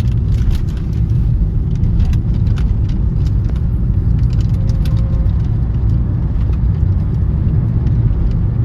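A steady low rumble, with faint scattered clicks and ticks above it.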